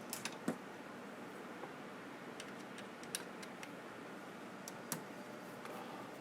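Scattered light clicks and taps from hands and small tools working inside an opened CD/DVD changer, over a faint steady hiss. A quick cluster of clicks comes in the first half-second, then single ones every second or so.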